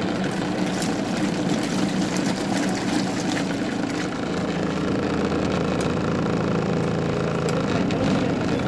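Good Ideas twin-tub washing machine running steadily with a constant motor hum.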